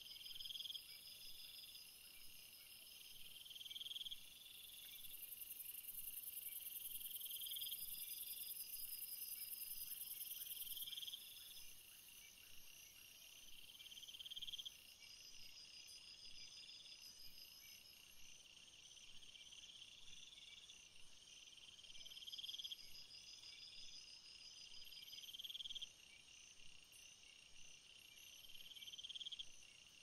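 Faint chorus of crickets and other insects calling. A high-pitched trill swells and fades about every two seconds throughout. A very high steady buzz joins from about five seconds in and stops about eleven seconds in. Short, very high chirps repeat through the second half.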